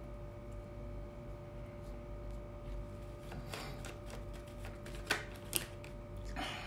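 A tarot deck being shuffled by hand: soft rustling of cards a little past three seconds in and again near the end, with two sharp clicks about five seconds in, over a faint steady hum.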